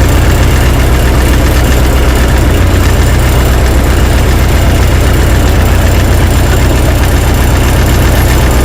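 Tractor engine running steadily, loud and close to the microphone.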